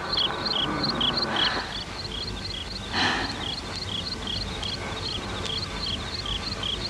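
Insects chirping in a steady, even rhythm, short high chirps at two alternating pitches, several a second. A short hiss-like swell about three seconds in.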